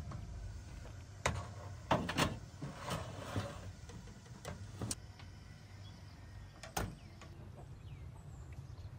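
Metal knocks and a scrape as a sheet-metal baking tray is slid onto the rack of a small stainless-steel gas oven, followed by a few sharper clanks from the tray and oven door, the last and loudest near the end.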